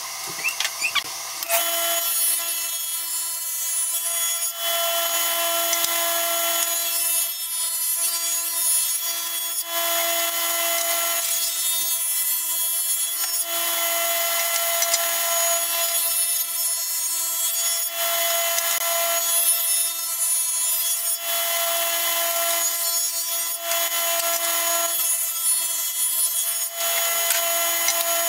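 Ridgid table saw running and ripping wood strips, board after board, over a steady motor whine. The cutting noise swells and eases every few seconds. A few clicks come just before the first cut starts.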